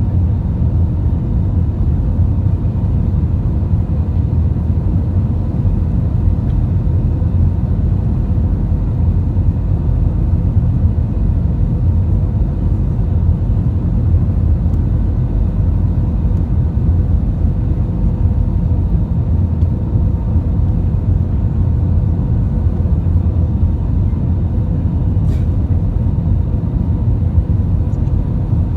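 Steady low rumble of airflow and engines heard inside the passenger cabin of an Airbus A320 in flight, with a faint steady hum riding on top.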